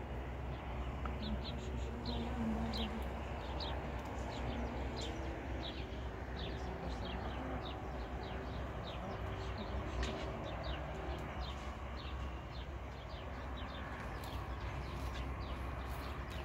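Small birds chirping: many short, high chirps repeating throughout, over a steady low rumble.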